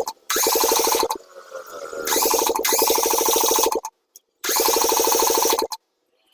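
Kipor diesel generator's engine being cranked in three short bursts of one to two seconds each, turning over fast and evenly without catching: the engine will not start.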